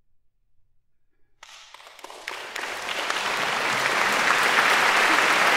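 About a second and a half of near silence, then audience applause breaks out and swells to full, steady clapping.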